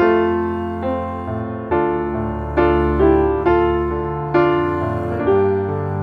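Soft piano music, single notes and chords struck about once or twice a second and left to ring out.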